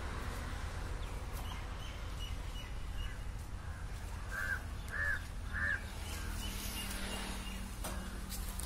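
A crow cawing three times in quick succession, about half a second apart, over a low steady background hum.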